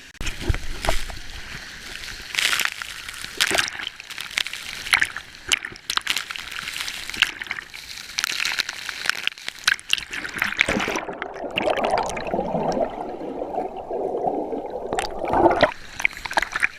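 Water splashing and sloshing close by in a waterfall's plunge pool, with many irregular splashes. For a few seconds past the middle the sound goes muffled.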